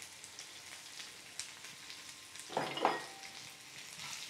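Sliced okra sizzling and crackling in hot oil in a nonstick frying pan, with a wooden spatula stirring it and scraping the pan, loudest a little past halfway.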